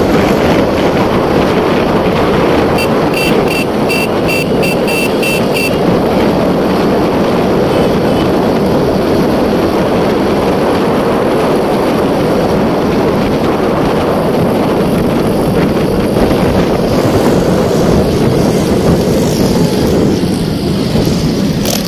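Motorcycle on the move: wind rushing over the microphone with the engine running underneath. About three seconds in, a string of quick high beeps sounds, about three a second, for around three seconds.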